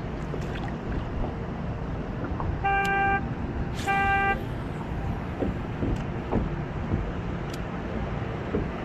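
A horn sounds two short toots, each about half a second long and about a second apart, over a steady low rumble.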